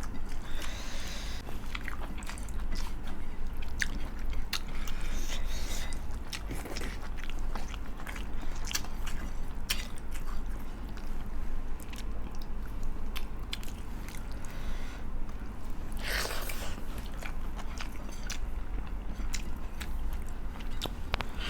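Close-miked chewing and crunching of food, with many short crisp crackles and mouth clicks, and a brief hiss about sixteen seconds in.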